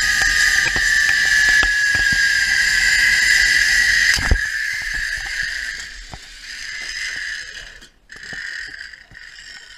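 Zipline trolley pulleys running along the steel cable: a high whine slowly falling in pitch, with wind rushing over the microphone. About four seconds in there is a sharp knock, and the whine and wind drop away as the trolley slows to a stop at the end of the line.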